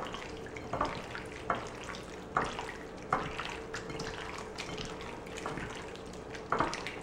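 Hands squishing and turning raw chicken pieces in beaten egg in a bowl: wet squelches and sloshes, with a sharper squelch every second or so.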